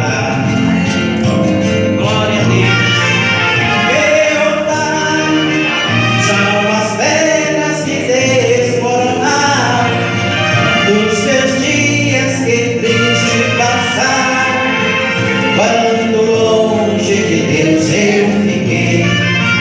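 Music from a gospel song: a melody line that bends and glides over a steady, repeating bass.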